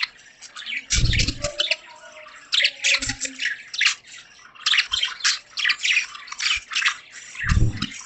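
Budgies chattering in rapid, overlapping chirps and warbles, with two short low thumps, one about a second in and one near the end.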